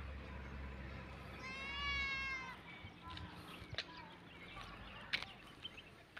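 A single high, drawn-out animal cry about a second long, heard about a second and a half in, from a goat or a cat near a goat pen. Scattered crunching footsteps on loose gravel follow it. A low steady hum stops a couple of seconds in.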